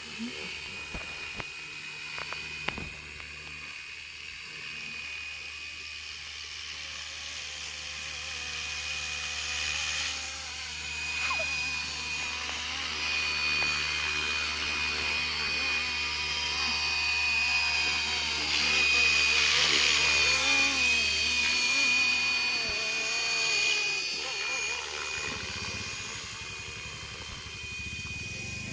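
FW450 RC helicopter flying, its rotor whirring over a steady high motor whine. It grows louder as the helicopter comes down close to land, then quietens near the end.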